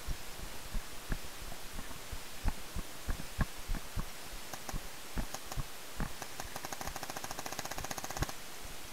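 Paintball markers firing: scattered single pops and thumps, then a rapid-fire string of many shots a second for nearly two seconds near the end.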